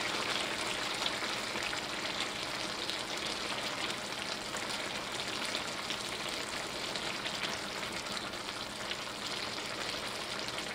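Shrimp in tomato sauce sizzling and bubbling in a cast-iron skillet, a steady crackling hiss, as a wooden spoon stirs them through the simmering sauce.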